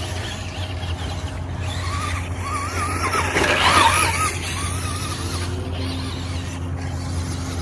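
Traxxas Stampede RC truck's electric motor whining, its pitch wavering up and down as the throttle is worked, loudest in the middle. A steady low hum runs underneath.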